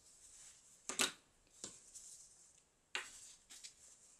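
A few light clicks and knocks of craft supplies being picked up and set down on a cutting mat, the sharpest about a second in and another near three seconds.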